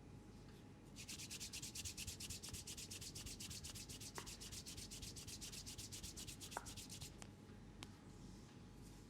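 Rapid, even rubbing strokes, about seven a second, starting about a second in and stopping about seven seconds in, with a few faint clicks.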